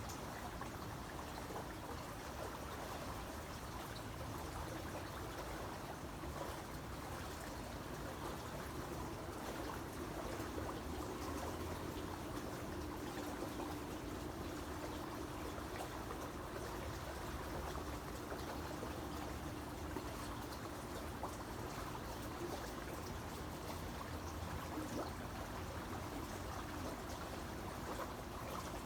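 Creek water running and trickling steadily over stones. A faint steady hum sits under the water for a while in the middle.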